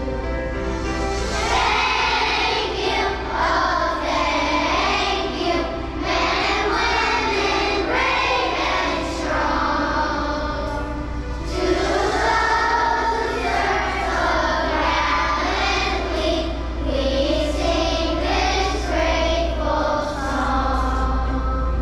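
A group of children singing together as a choir, with a steady low hum underneath.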